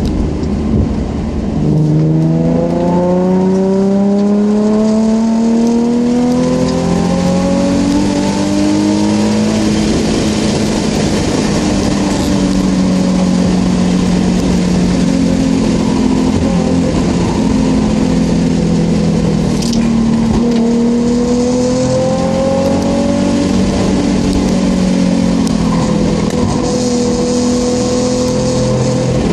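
Nissan 350Z's 3.5-litre V6 heard from inside the cabin under hard acceleration, its pitch climbing steadily for several seconds and then held high, with a brief drop and another climb a little after twenty seconds in, over tyre and road noise.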